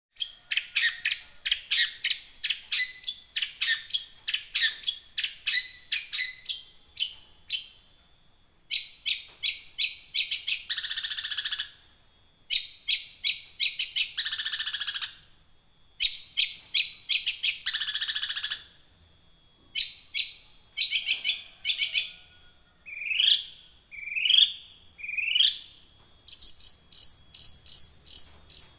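Long-tailed shrike (cendet) in full continuous song: quick strings of sharp chirps and trills, broken three times by a harsh rasping burst about a second long, with a few rising slurred notes and then a fast chirp run near the end.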